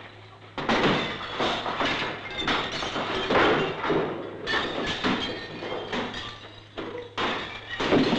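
Repeated crashes and clattering of objects being thrown and smashed in a paved yard, with window glass breaking. The crashes start about half a second in and come irregularly throughout.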